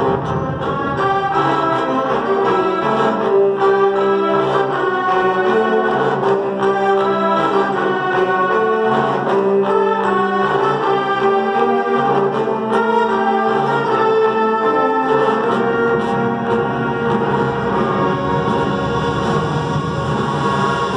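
Wind orchestra playing a full passage live, with brass, saxophone, clarinet and bassoon holding and changing notes together. The lowest parts drop out about fifteen seconds in.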